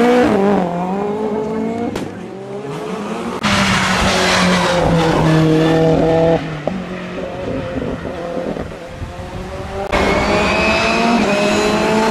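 Hillclimb race car engines at full throttle, revving up and dropping in pitch through gear changes, heard in several short clips that change abruptly about three and a half and ten seconds in.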